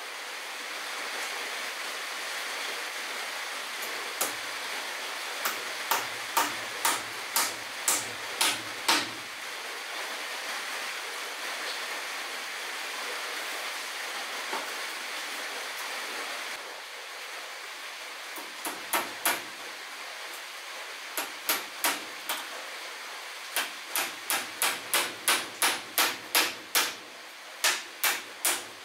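Hammer nailing wooden wall cladding boards: runs of sharp strikes, two to three a second, with pauses between the runs. Under them is a steady rushing background noise that drops a little about two-thirds of the way through.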